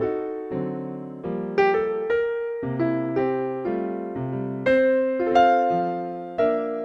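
Background music: a soft piano or electric-piano melody, with notes struck one after another and left to fade.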